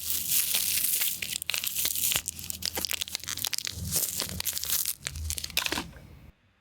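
Crinkling and crunching of a small hotel-room instant coffee packet squeezed close to the microphone, dense crackles that stop abruptly near the end. Made with no effects as a foley stand-in for a bear eating.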